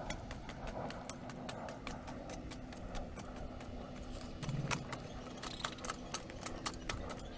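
Garden hoe chopping and scraping into bare soil: a run of irregular sharp strikes and scrapes, with a duller thud about halfway through.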